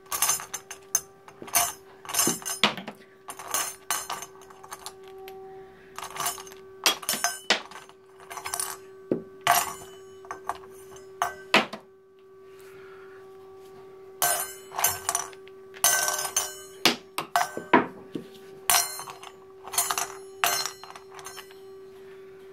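Cockatoo rummaging with its beak through toys in a stainless steel cup: toys clinking and knocking against the metal in irregular clusters of sharp clatters, with a couple of short pauses.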